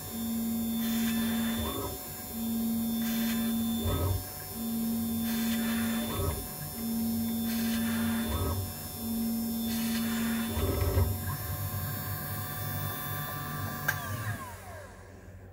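Small CNC machine milling a circuit board, its stepper motors whining in a repeating cycle of moves about every two seconds. Near the end the pattern changes, a falling whine sounds, and the machine goes quieter.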